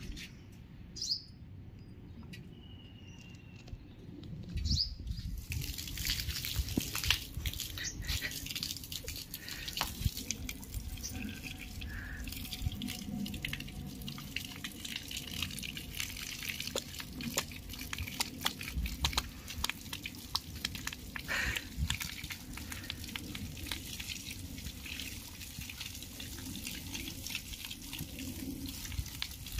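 A jet of water spraying and splashing onto a German Shepherd and the brick paving, starting about five seconds in and running on steadily with many small splashes and drips.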